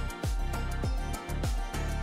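Background music with a steady beat: deep bass drum hits, about three a second, over sustained bass notes.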